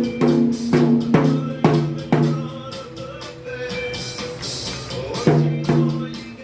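Drum struck about twice a second, each hit ringing with a low tone, over rock music; the hits pause for a few seconds in the middle, then two more come near the end.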